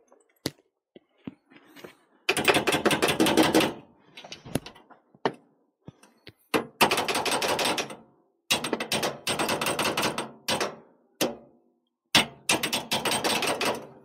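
Rapid mechanical clicking from a tool working on the pipe fittings, in four bursts of a second or two each with single knocks in between.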